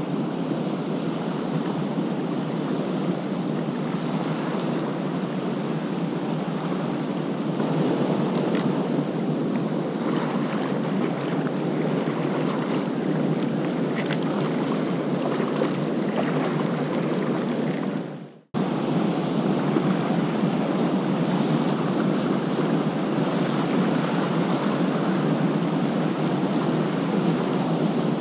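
Steady rush of water pouring from an open dam spillway gate and churning into the river below. The sound cuts out for a moment about two-thirds of the way in, then resumes.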